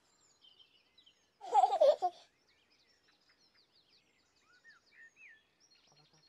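A baby giggles once, briefly, about one and a half seconds in. After it, faint birdsong of chirps and short rising whistles.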